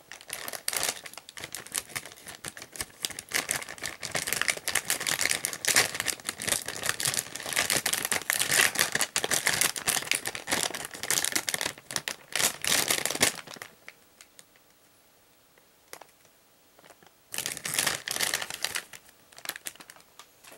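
Thin plastic parts bag from a model kit crinkling as it is handled and pulled open, dense and crackly for about thirteen seconds before stopping. A shorter burst of the same crinkling comes a few seconds later.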